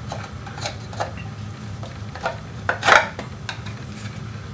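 Small clicks and scrapes of a Suzuki V-Strom 1000's countershaft sprocket cover being wiggled loose and pulled off the engine case by hand, with a louder clatter about three seconds in.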